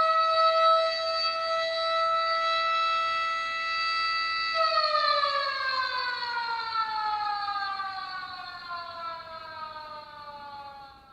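Motor-driven stadium siren signalling the start of a match, of the kind sounded at Koshien high-school baseball. It holds one steady pitch, then about four and a half seconds in winds down in a long falling glide as it fades.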